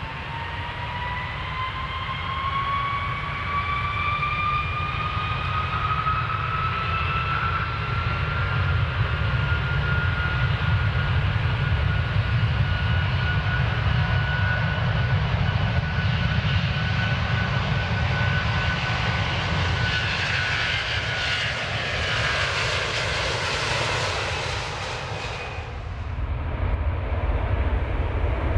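Airplane takeoff: an engine whine rises in pitch over the first eight seconds or so and then holds steady over a heavy low rumble. A loud hiss builds from about 20 seconds in and cuts off suddenly around 26 seconds, leaving the rumble.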